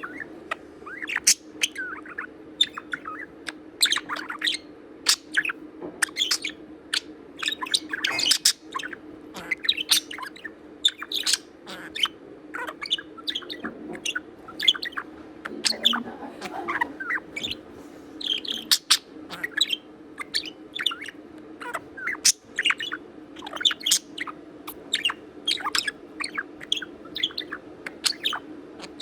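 Pet budgerigar chattering: a rapid, unbroken string of short, sharp chirps, squeaks and clicks, with a steady low hum underneath.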